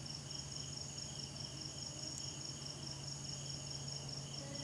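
Crickets trilling steadily in the background, a continuous high-pitched chirring, over a faint low hum.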